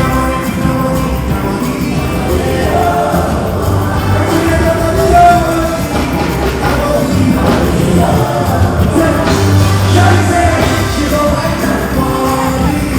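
Loud live music with singing over a heavy bass beat, the sound of an amplified concert performance.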